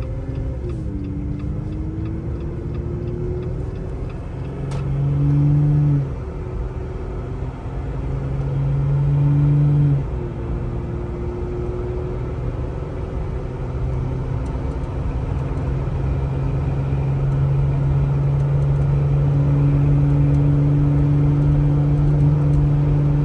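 Jeep Gladiator's 3.6-litre V6 through an AWE Trail Edition exhaust, under easy acceleration with the automatic transmission. The exhaust note climbs in pitch and loudness and drops at upshifts about 1, 6 and 10 seconds in, then settles into a steady, slowly building tone.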